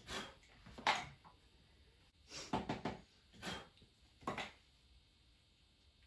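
About five short rustling and scuffing handling noises spread over four seconds, consistent with parts of a vacuum cleaner being moved about and set down.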